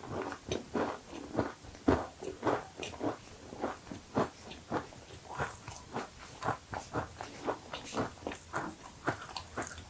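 A cookie being chewed close to the microphone: a steady run of short chewing sounds, about two to three a second.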